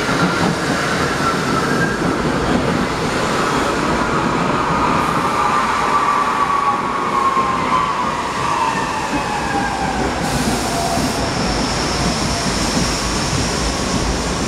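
R68 subway train pulling into a station with a steady rumble of wheels on rail. A whine falls in pitch as the train slows, and a thin high tone joins about ten seconds in.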